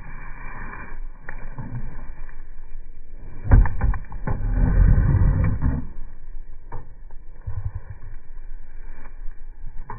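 Rumbling and knocking handling noise as a German shepherd paws at and bumps a camera sitting on the ground. A quick run of sharp clicks and a thump comes about three and a half seconds in, followed by the loudest rumbling for a couple of seconds, then a few single knocks.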